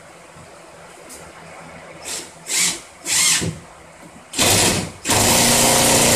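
Cordless drill driving screws into sheetrock, in short bursts of the trigger. About two seconds in come three quick bursts, then a longer one, then a steady whining run from about five seconds in as a screw is driven home.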